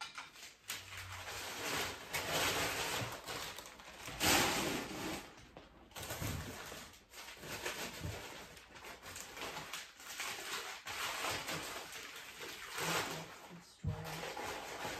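Crumpled packing paper rustling and crinkling on and off as dishes are pulled out of a moving box and unwrapped.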